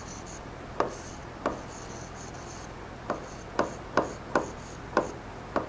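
Pen writing on an interactive touchscreen board: a string of light, irregular taps as the tip strikes the glass, about eight of them, with faint scraping strokes in between.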